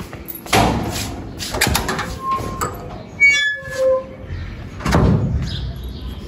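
A metal sliding gate being worked open on its track: rolling, scraping rattles broken by sharp metallic clanks, with a short squeal a little past the middle.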